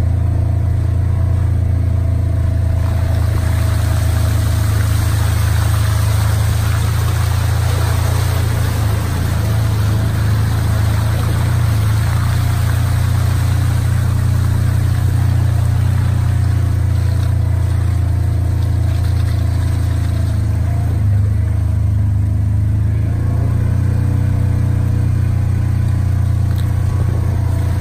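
Off-road vehicle's engine running with a steady low drone as it drives along a muddy, waterlogged dirt track. A rushing hiss of tyres and water joins in through the middle stretch.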